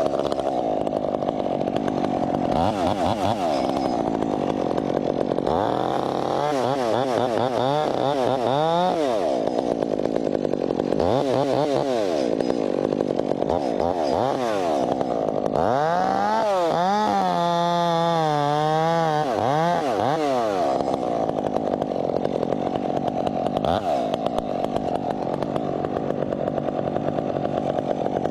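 Chainsaw running continuously, its engine pitch rising and falling again and again as the throttle is worked, with steadier stretches between.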